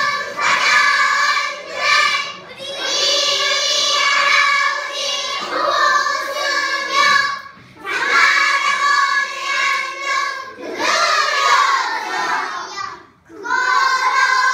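A class of young children's voices in unison, going in long phrases broken by short pauses.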